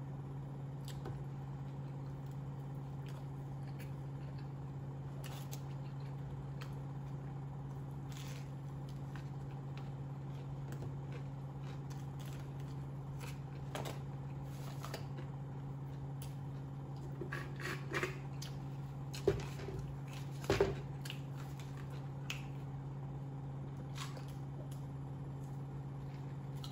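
Close-up eating sounds: chewing and biting into fast food, with scattered soft clicks and a few louder, sharper crunches about two-thirds of the way in, over a steady low hum.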